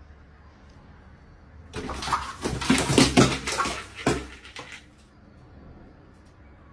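A pet making a loud, raspy, fluttering sound that starts about two seconds in and lasts about three seconds.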